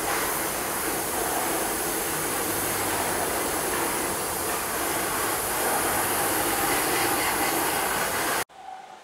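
Steady loud hiss of a compressed-air tool in a body shop, which stops abruptly near the end.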